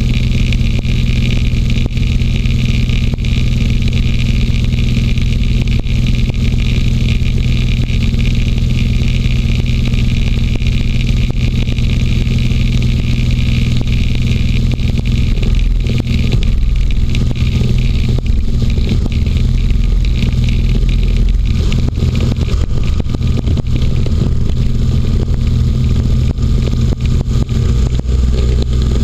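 Inflatable hovercraft's engine and caged propeller running steadily at cruising speed, a constant loud drone. From about halfway through, irregular scraping and crackling come in as the skirt runs over rougher snow and ice.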